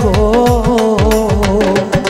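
Live Bengali Baul folk song: a dhol drum beats a steady rhythm, about three strokes a second, under a wavering keyboard melody, as the singer finishes a line with a held "ho" at the start.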